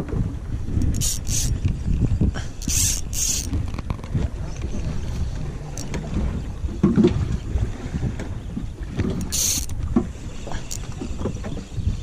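Wind buffeting the microphone in an uneven low rumble, with a few short hissing bursts: a pair about a second in, another pair about three seconds in, and one more near the end.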